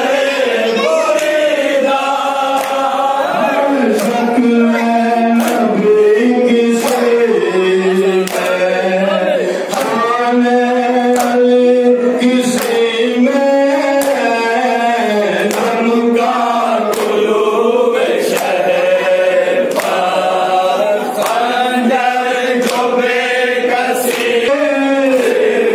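A group of men chanting a noha, a Shia lament, together in a slow, steady melody. Sharp chest-beating (matam) strikes keep time throughout, about one a second.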